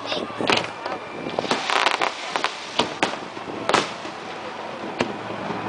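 Aerial fireworks shells bursting in a series of sharp bangs, irregularly spaced about one or two a second, over a steady background haze.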